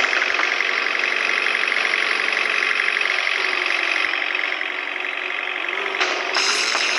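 Diesel engine running steadily, its pitch sagging slightly and then picking up again, with a brief noisy burst about six seconds in.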